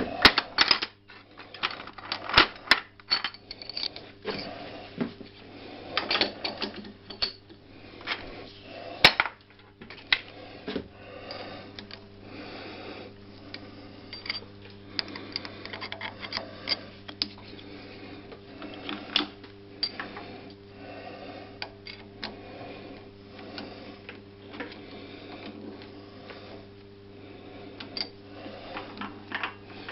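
Irregular metallic clicks, taps and knocks of hand work on a lathe chuck being taken off, over a steady low hum.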